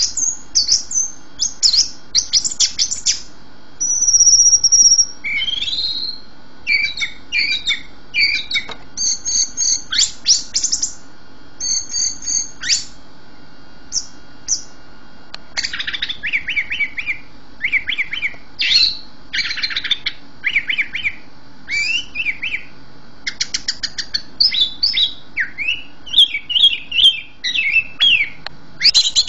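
Songbird singing a varied song of short whistled phrases, rapid trills and chirps, with brief pauses between phrases and one held high whistle about four seconds in.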